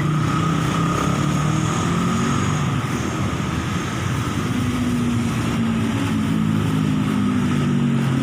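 Roadside traffic noise: motor vehicle engines, including motorcycles, running and passing steadily.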